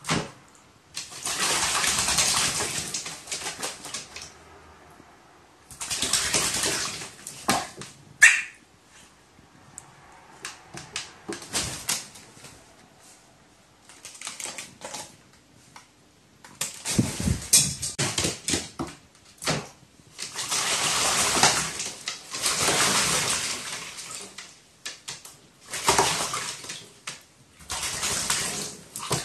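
A pet crow bathing, splashing water with its wings in repeated bursts of one to three seconds, with short pauses between them.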